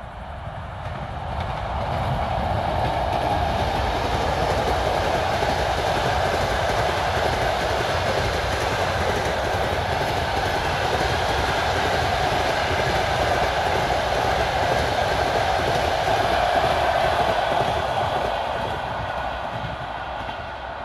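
A passenger train hauled by an EP2K electric locomotive passes close by at speed, with a steady rumble and the noise of wheels running on the rails. The sound swells over the first couple of seconds and fades over the last few as the train moves away.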